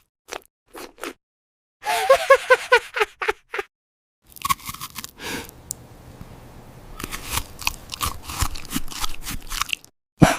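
Crisp crunching and chewing, bite after bite, in the manner of an eating ASMR track. About two seconds in there is a brief run of quick pitched pulses like a giggle.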